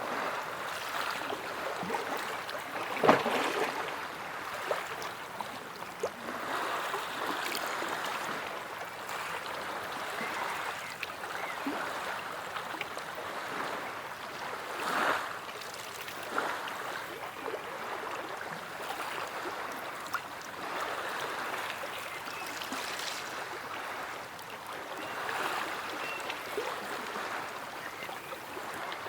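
Small sea waves lapping and splashing in a continuous wash, with sharper splashes now and then. The loudest splash comes about three seconds in.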